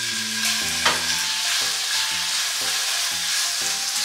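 Raw chicken pieces sizzling in hot oil and garlic in a frying pan, stirred with a spatula. There is a sharp tap about a second in.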